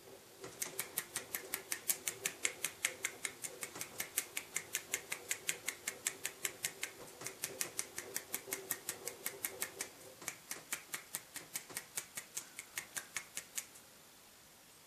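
One-handed clapping: the fingers of one hand flapped against its own palm, making a rapid run of sharp slaps, about four or five a second. There is a brief gap about ten seconds in, and the slapping stops shortly before the end.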